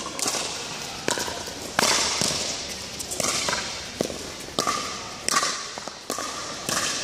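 Sharp pops of pickleball paddles striking the hollow plastic ball, about one every half second to second, each echoing in a large indoor court hall.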